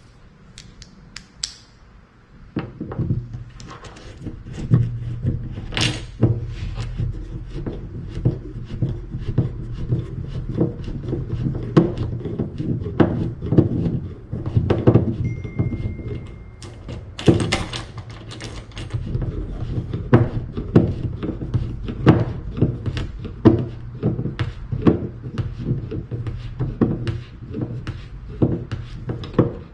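Hand-fitting hardware on a wooden kayak deck: many irregular knocks and clicks of a screw, nut and tools against the plywood over a low rumble of handling on the hollow hull.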